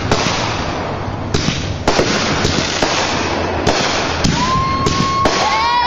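Aerial fireworks going off: a constant hiss and crackle with several sharp bangs. Late on, a high whistle holds one pitch and is then joined by a second whistle that rises in pitch.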